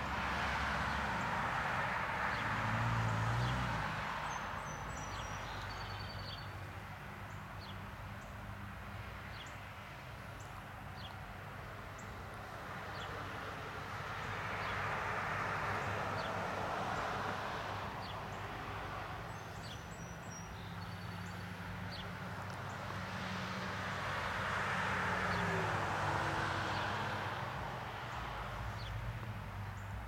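Distant road traffic, a rushing noise that swells and fades three times over a low steady hum. Twice, a small bird gives a few short, high, falling chirps.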